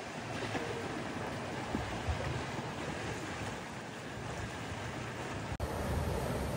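Sea waves washing steadily at the water's edge, an even rushing with some wind on the microphone. The sound breaks off for an instant near the end.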